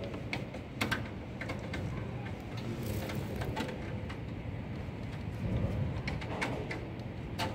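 Scattered light clicks and knocks from a cable and its plug being handled and unplugged at the back of a desktop computer, over a steady low hum.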